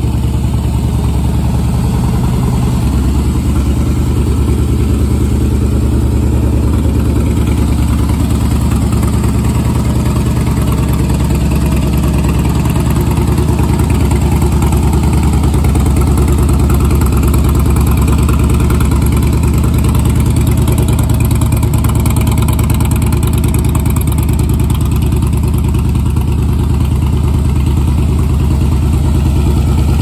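Harley-Davidson Softail Slim's air-cooled V-twin idling steadily through Vance & Hines slip-on silencers.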